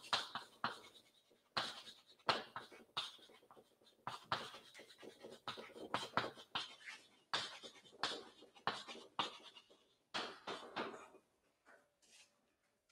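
Chalk writing on a chalkboard: a quick, irregular run of short taps and scrapes as a line of text is written, stopping about a second before the end.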